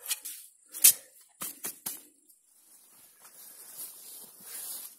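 Spade digging into garden soil: several sharp crunching strokes in the first two seconds, the loudest about a second in, followed by faint rustling.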